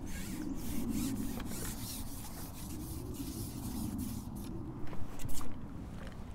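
Rustling and rubbing handling noise close to the microphone, with a couple of louder knocks about five seconds in.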